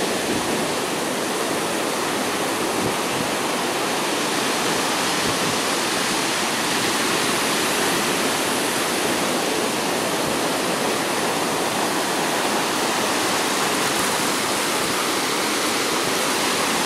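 Ocean surf washing up onto the shore, a steady, unbroken sound of breaking waves and foam.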